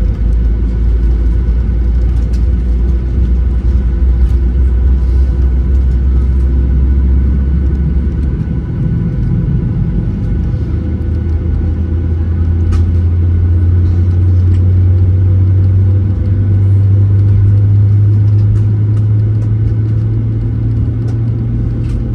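Inside the cabin of a Boeing 737-800 taxiing: the steady drone of its CFM56-7B engines over a deep rumble of the airframe rolling. About eight seconds in, the low hum steps up in pitch and then rises slightly.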